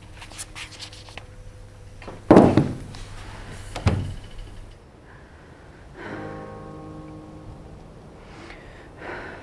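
A pair of high-heeled shoes set down on a wooden table: two loud thuds about a second and a half apart, the first the louder. Quiet background music runs under them.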